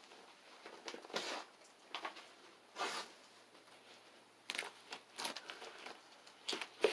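Irregular short crackles, crunches and rustles from pulling down ceiling drywall and insulation, a handful of brief scrapes spread over several seconds.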